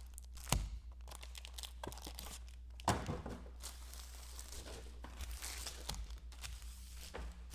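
Trading card pack wrappers being torn open and crinkled as cards are pulled, with sharper snaps about half a second in and again near three seconds in. A steady low hum runs underneath.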